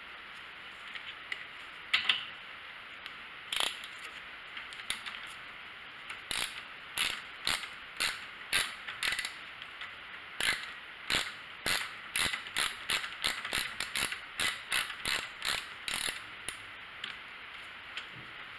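Socket ratchet clicking as it backs a spark plug out of the welder's gas engine. A few scattered clicks come first, then short repeated strokes about two a second for some ten seconds, and a louder clack right at the end.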